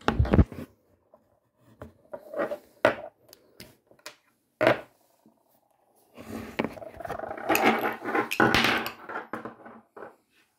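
Handling noise from a small gold metal perfume travel atomizer and its cap: sharp knocks and clicks against the table. About six seconds in comes a few seconds of denser rubbing and clicking as the cap and bottle are turned in the hand.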